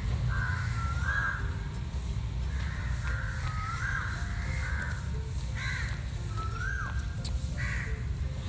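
Crows cawing over and over, a call about every second, over faint background music.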